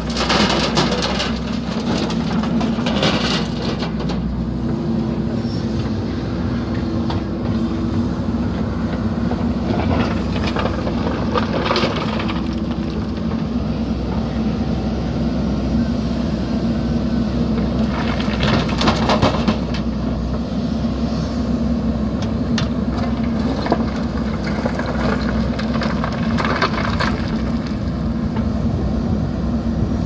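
JCB 3DX backhoe loader's diesel engine running steadily as the arm works. Now and then comes a short clatter of stone: the bucket scraping into the rock pile and dumping into the steel tractor trolley.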